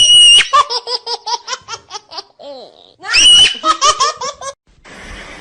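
High-pitched laughter: a shriek, then a run of quick laughs, twice over, stopping about four and a half seconds in. A steady hiss follows near the end.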